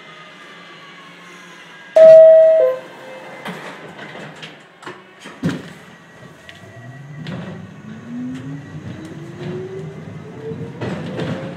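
NYC subway train sounding one loud horn blast under a second long, its pitch stepping down just before it stops. A few sharp knocks follow, then the traction motors start a steadily rising whine as the train pulls away from a standstill.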